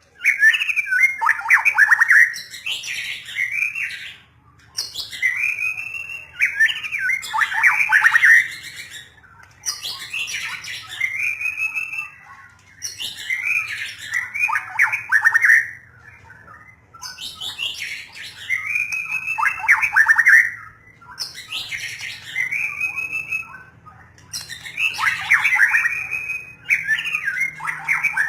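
White-rumped shama (murai batu) singing: loud, varied phrases of sweeping whistled and chattering notes, each lasting a couple of seconds, repeated with short pauses between.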